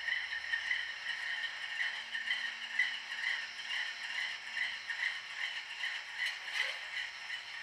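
ESU LokSound sound decoder in an HO scale NR class diesel locomotive model playing its diesel engine sound through the model's small speaker: a rhythmic pulsing at about two to three beats a second over a steady hum, with a short click near the end.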